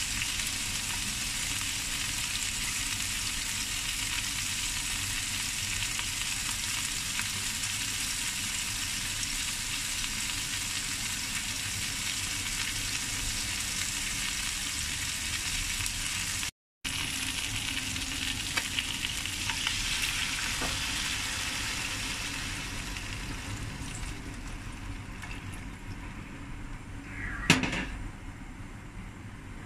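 Small whole fish and ginger slices frying in hot oil in a wok: a steady sizzle that fades in the last several seconds. A single sharp, loud sound comes near the end as water goes into the pan.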